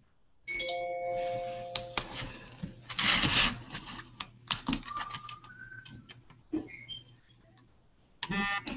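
An electronic chime: several held tones that start suddenly about half a second in and stop together about a second and a half later. Then scattered rustling, clicks and two short beeps follow, like live microphones and computer alerts on an online call.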